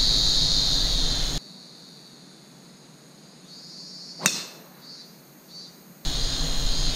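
Driver club striking a golf ball off the tee: one sharp crack about four seconds in. Before it, a steady high insect drone over a low rumble, which cuts off abruptly just under a second and a half in.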